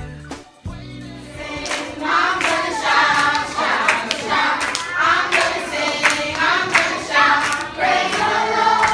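A group of young women singing together and clapping their hands in time. The singing and clapping come in about a second in, after a moment of background music.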